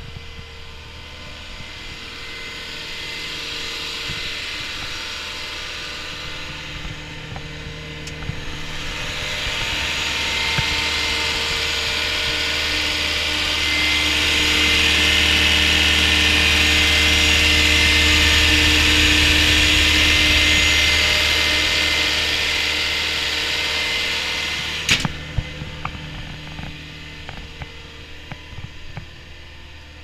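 Caterpillar 236D skid steer loader's diesel engine idling steadily with a low hum and a hissing whir above it. It grows louder partway through, loudest where the engine compartment is open, then fades, with one sharp knock about five seconds before the end.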